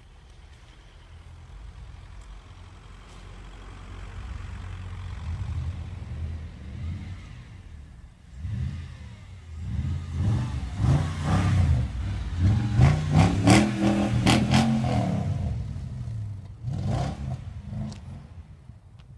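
Mercedes-Benz W211 E500's V8 engine drawing closer, then revving hard again and again, its pitch rising and falling with each blip. It is loudest about two-thirds of the way through, then fades away.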